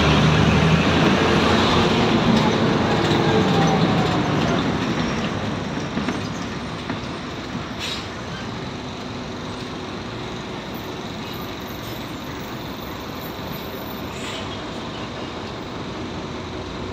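City bus engine heard from inside the passenger cabin, running loud under power with its pitch falling over the first few seconds as it eases off. It then settles into a quieter, steady hum as the bus slows or idles, with a couple of faint clicks.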